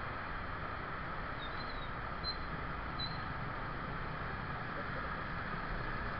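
Motorcycle running at low speed in slow traffic on a wet road, heard from the rider's own camera: a steady low rumble under even road and wind noise. A few short high chirps come between about one and three seconds in.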